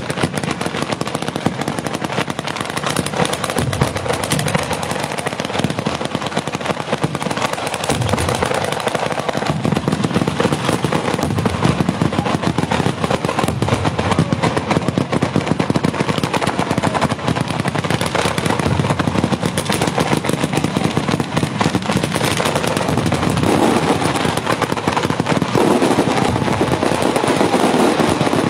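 Fireworks firing in a continuous rapid barrage of bangs and crackles, without pause. The firing comes from ground-level batteries, and shells and fountains are bursting overhead near the end.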